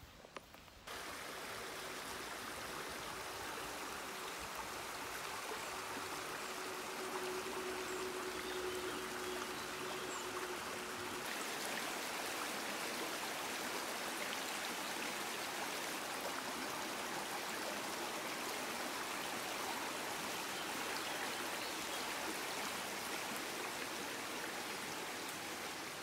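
Steady rush of flowing water, starting abruptly about a second in.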